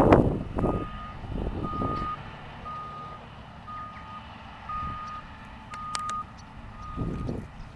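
A farm vehicle's reversing alarm beeping steadily, about one half-second beep a second at a single pitch, over a low engine rumble.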